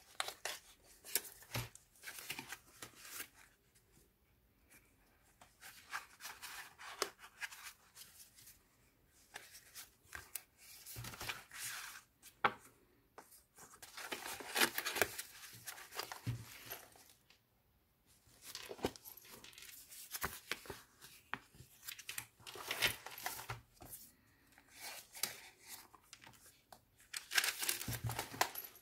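Paper pages and tucked-in photo flaps of a handmade junk journal being turned and handled: crisp rustling and crinkling in irregular spells, with a few short quiet pauses.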